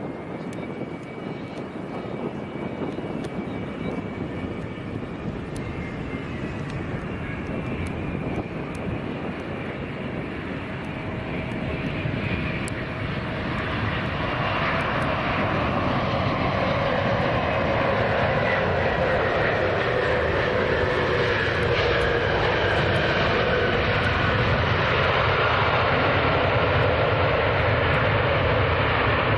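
Airliner jet engines, a broad roar with whining tones that slide slowly in pitch, growing louder over the first half and then holding loud and steady as the aircraft comes close.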